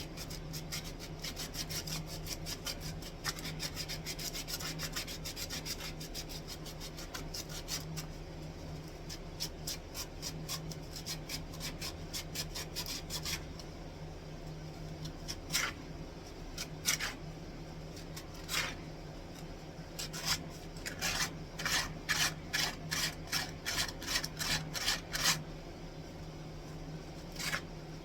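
Wood being hand-sanded with sandpaper: quick back-and-forth scraping strokes in a fast run, a pause with only a few single strokes, then another fast run, over a steady low hum.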